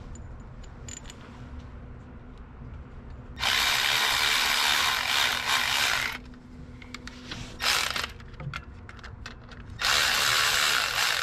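Cordless power driver running bolts in on an engine: one run of about two and a half seconds, a brief burst, then another run of about a second and a half near the end, with light clicks of parts being handled between them.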